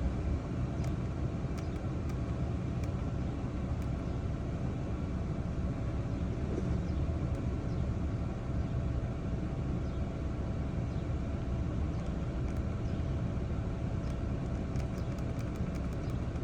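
Toyota V6 engine idling steadily. The engine has misfire codes on bank 1 (cylinders 1, 3 and 5), which the mechanic traces to a faulty bank 1 sensor 1 air-fuel ratio sensor.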